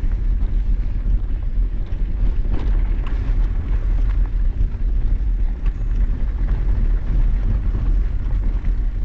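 Mountain bike riding along a rocky trail: a steady low rumble of wind on the microphone and tyre noise, with a few sharp clicks and rattles from the bike.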